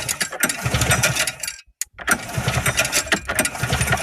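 Small petrol engine being pull-started: repeated hard yanks on the recoil cord turn it over in short pulsing bursts, but it doesn't catch, with a brief silent break about halfway through. The men afterwards put the failure down to a spark plug that needs wiping dry.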